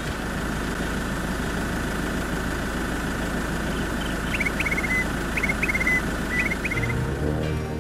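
Vehicle engine idling with a steady low rumble. From about halfway in, a bird gives three short runs of falling chirps, about a second apart.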